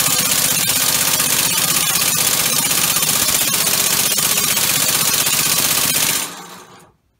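Homemade six-cylinder, two-plate compressed-air engine running fast on all six cylinders: a loud, dense, rapid chuffing of air exhaust and valve clatter. About six seconds in the air is cut and the sound dies away within a second as the engine stops.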